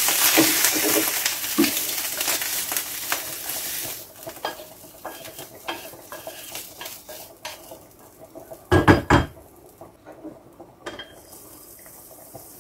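Mushrooms still sizzling in a granite-coated frying pan as a wooden spatula scrapes them out onto a plate. The sizzle fades after about four seconds, leaving scattered scrapes and clinks of the spatula on the pan and plate, with two louder knocks about nine seconds in.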